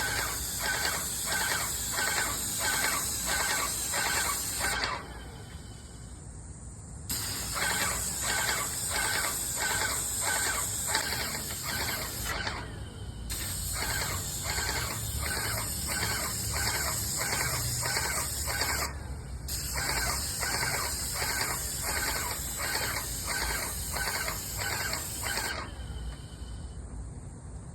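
Paint sprayer spraying in four long passes of about five or six seconds each, with a short stop between passes. It is a high hiss with an even pulsing of a little over two beats a second.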